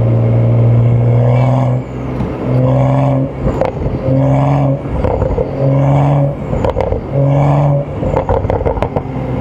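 BMW M235i's turbocharged inline-six engine running steadily, then revving in five short bursts about a second apart, each rising to the same pitch and dropping back. A quick run of sharp pops follows near the end.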